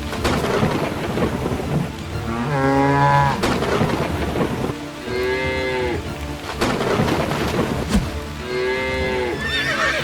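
Cattle mooing three times over steady heavy rain, with sharp cracks of thunder.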